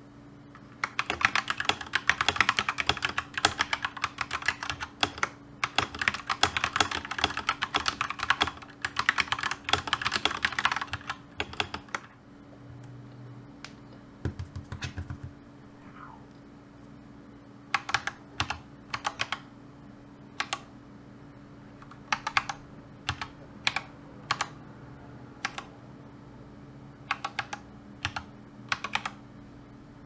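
Typing on a compact mechanical keyboard with linear red switches: fast, continuous keystrokes for about ten seconds, then, after a short pause, scattered short runs of key presses. Satisfying clicks, but still kind of loud.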